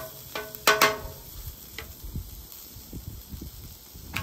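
Metal spatula striking and scraping the steel griddle top, about three clanks in the first second, each ringing briefly. Softer low thuds follow as a tortilla is laid down.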